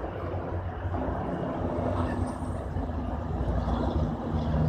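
Brookville BL20GH diesel locomotive approaching at a distance: a steady low engine rumble, its hum growing a little stronger near the end.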